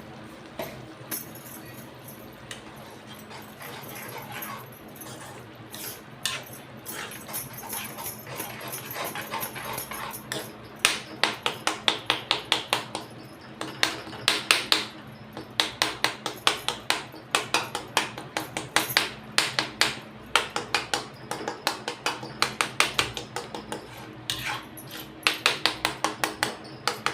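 A metal spoon stirring in a cooking pan, knocking and scraping against the pan in quick runs of about four or five knocks a second from about ten seconds in. Before that there is only a low background.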